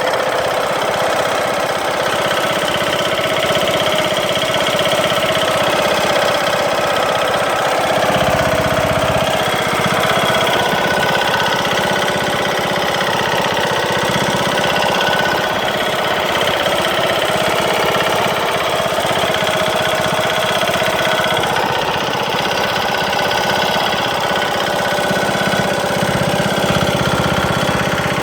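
Briggs & Stratton engine of a Craftsman LT2000 lawn tractor running steadily with a loud knocking noise. The cause has not yet been found, and the engine has just had its broken camshaft and timing gear replaced.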